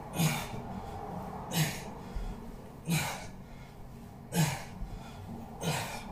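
A man breathing hard during alternating V-ups: five sharp, noisy exhalations, about one every second and a half, in time with the reps.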